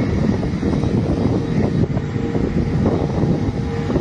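Wind buffeting a phone microphone in a rough low rumble, over the steady hum of a twin-engine jet airliner's engines as it taxis.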